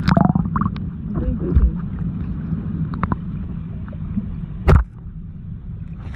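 Muffled underwater sound picked up by a phone microphone held under the water: a steady low rumble with gurgling and small clicks, and one sharp knock about 4.7 seconds in.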